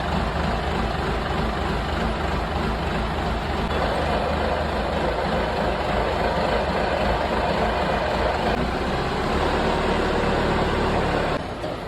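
Excavator's diesel engine running steadily, its sound getting harsher about four seconds in.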